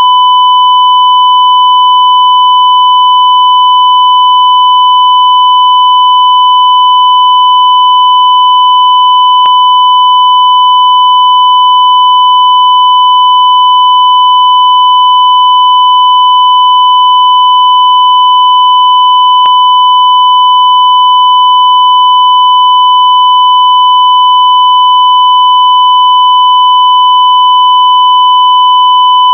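Censor bleep: a single loud, steady, high-pitched tone held without a break.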